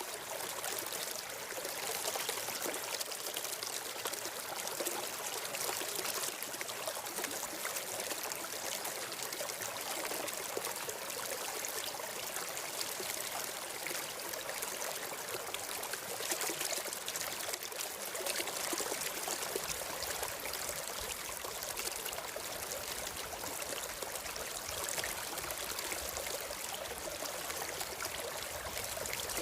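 A stream flowing and trickling steadily.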